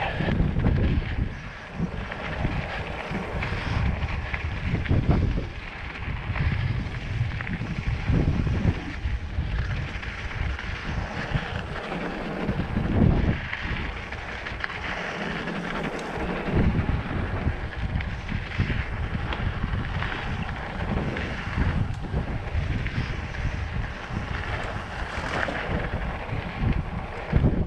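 Wind buffeting the microphone in irregular gusts, over the steady hiss of mountain bike tyres rolling on a dirt trail at speed.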